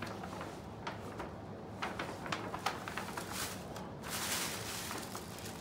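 Paper gift bag and tissue paper rustling and crinkling as hands rummage through it, with scattered small crackles and a longer rustle about four seconds in.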